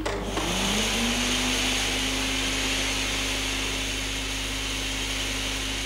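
Air-track blower switched on with a click: its motor spins up with a rising hum that settles into a steady tone over a steady hiss of air.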